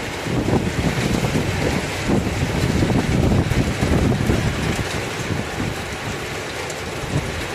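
Heavy rain falling in a thunderstorm: a dense, steady hiss with a low, uneven rumble underneath.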